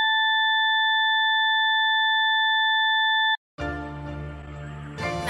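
Steady test-card tone over colour bars: a single pitch with overtones that cuts off suddenly about three and a half seconds in. After a brief gap, the song's music starts with a low bass line and fills out near the end.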